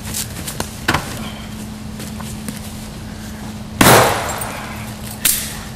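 Fluorescent light tube shattering as it is smashed over a person: one loud crash of breaking glass about four seconds in. A second, shorter crash follows about a second and a half later, with a few small clicks early on.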